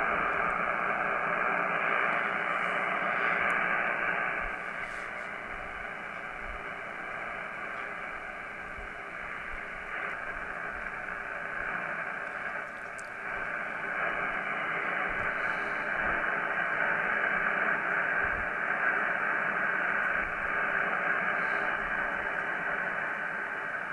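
Power line noise heard as a steady hiss of static through a Yaesu FTDX101D HF receiver on 20 m upper sideband. It drops in level about five seconds in and swells again after about thirteen seconds as the QRM Eliminator's phase and gain controls are turned to cancel it.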